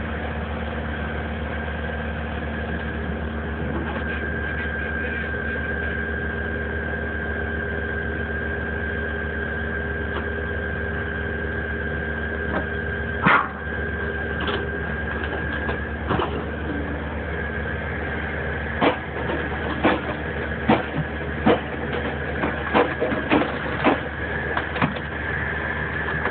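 Heavy-equipment engine running steadily with a high, even hydraulic whine, powering a homemade hydraulic log splitter. A loud knock comes about halfway, and a run of sharp knocks and cracks follows in the last third as logs are handled on the splitter.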